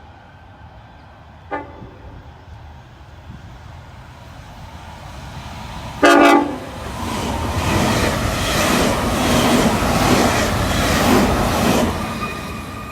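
Train horn giving a short faint toot about 1.5 s in, then a loud short blast about 6 s in, followed by the train passing close with its wheels clicking rhythmically over rail joints, easing off near the end.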